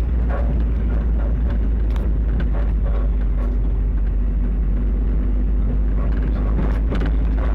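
Car being driven: a steady engine drone over a strong low rumble.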